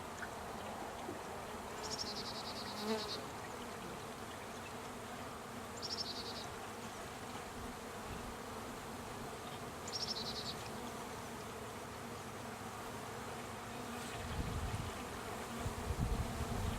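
Honeybees buzzing steadily around an open hive. A short, high, rapid trill repeats about every four seconds.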